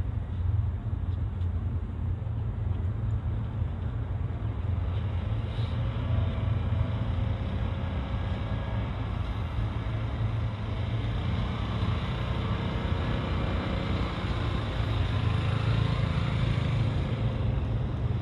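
Steady low rumble of motor vehicles running, growing a little louder near the end.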